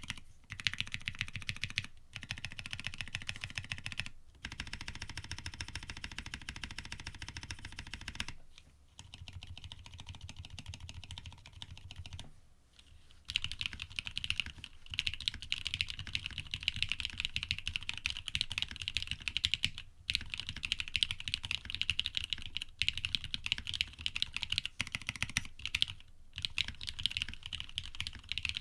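AR87 custom mechanical keyboard with lubed Cream linear switches on an aluminium plate, typed on fast: a dense stream of key clacks broken by a few brief pauses.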